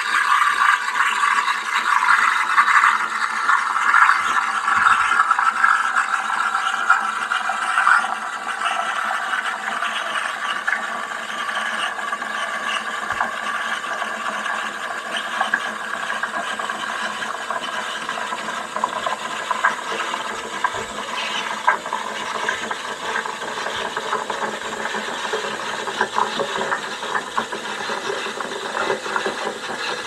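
De'Longhi La Specialista's steam wand hissing steadily in a stainless pitcher of cream, with small crackles as it froths the cream into foam. The hiss is loudest for the first several seconds, then eases a little.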